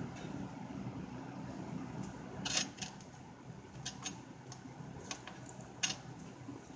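A steady low hum with about half a dozen short, sharp clicks and taps scattered through the middle, the loudest two about three seconds apart.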